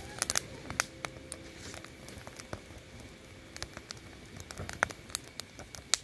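Wood campfire crackling, with irregular sharp pops from the burning split logs; a few louder pops near the start and again just before the end.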